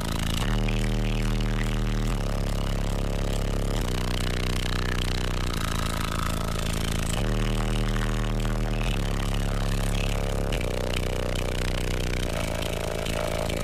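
High-power car audio subwoofer system playing bass-heavy music very loud: deep held bass notes that step to a new pitch about every one and a half to two seconds.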